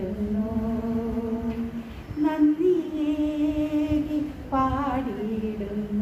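A woman singing a Malayalam hymn of praise to Jesus unaccompanied, drawing out a few long held notes with no clear words.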